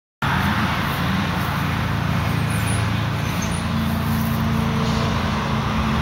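Road traffic: a car driving along the street, a steady engine hum and tyre noise with no change in pitch.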